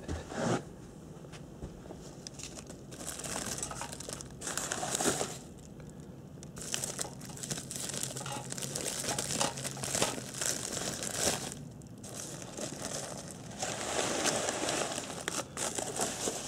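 Plastic bubble wrap crinkling as it is pulled and unwrapped by hand, in irregular spells with short pauses between them.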